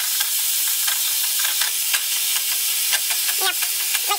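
Ground lamb sizzling in a skillet with onion and carrot while a spatula stirs and scrapes it, with short scraping clicks over a steady hiss. A few short squeaks come near the end.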